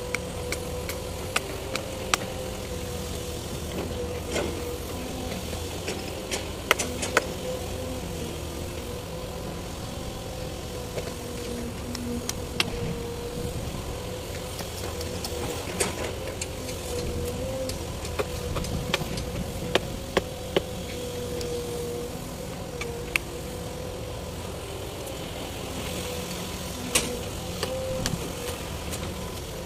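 Hammer knocking on timber foundation formwork to strip it from the cured concrete, in sharp irregular strikes. Over a steady engine-like hum.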